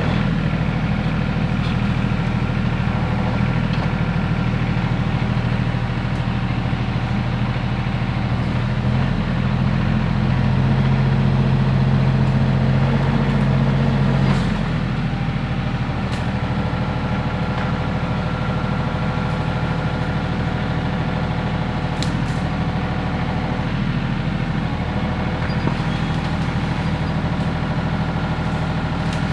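RK 37 compact tractor's diesel engine running steadily under load while the tractor is stuck. About nine seconds in it works harder and gets louder, then drops back abruptly about halfway through.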